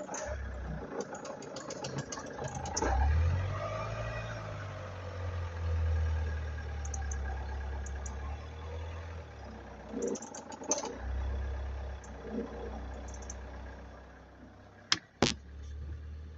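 Vauxhall Antara diesel engine running with a low, steady drone that swells a couple of times, under bursts of rapid clicking early on and again about ten seconds in. A sharp single knock, the loudest sound, comes about fifteen seconds in.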